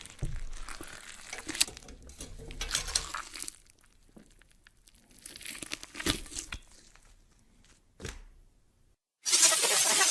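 Horror sound effect of crackling, tearing and crunching in irregular bursts, with sharp cracks about a second and a half in and again around six seconds. Near the end a loud, dense hissing noise starts abruptly.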